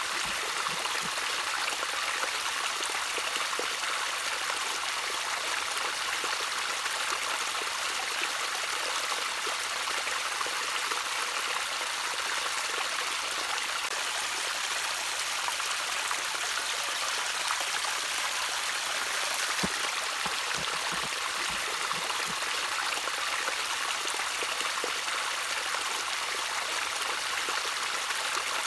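Small stream of water trickling and babbling steadily over stones, an even hiss with small droplet splashes.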